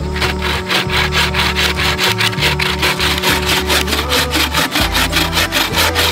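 Wooden-framed bow saw (bushcraft bucksaw) cutting through a log in quick, even back-and-forth strokes.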